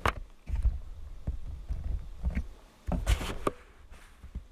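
Hammock cordage being handled and pulled around a tree trunk by hand: rustling and scraping, with sharp clicks near the start and about three seconds in, over irregular low thuds of the camera being jostled.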